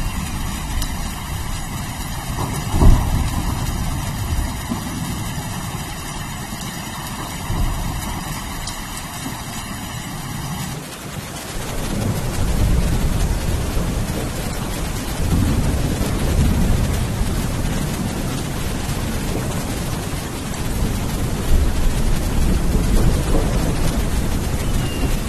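Steady rain with rolling thunder: a sharp, loud thunderclap about three seconds in, and low rumbles of thunder swelling and fading through the second half. The rain's sound changes abruptly about eleven seconds in.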